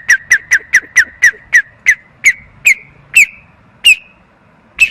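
A boy whistling with his mouth: a quick run of short, sharp chirps, each dropping in pitch. They slow down and stop about four seconds in, and one last chirp comes near the end.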